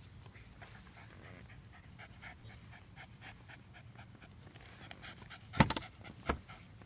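A dog panting close by, a quick, even run of faint breaths, with a few sharp knocks near the end.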